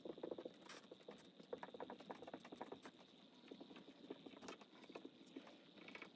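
Faint dry-erase marker writing on a whiteboard: quick, irregular taps and short scratchy strokes as each symbol is drawn.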